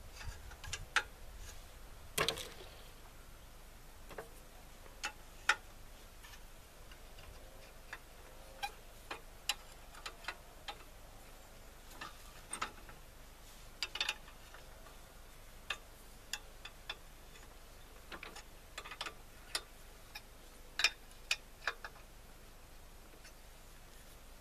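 Steel spanner clicking and clinking on the bolts of a cultivator's support-wheel bracket as the wheel is adjusted: scattered sharp metal clicks, a few seconds apart and irregular.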